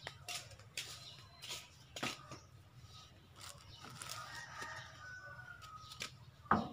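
A rooster crowing, a drawn-out call about four seconds in, over scattered clicks and crinkles of plastic snack packaging being handled; a sharp knock near the end is the loudest sound.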